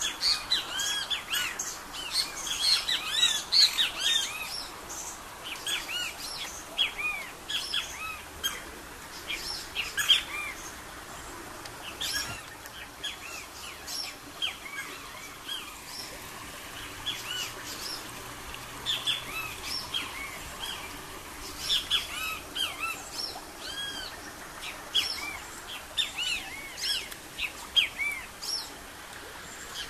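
Several birds chirping and calling, many short quick chirps overlapping, with a busy stretch at the start and again in the last third.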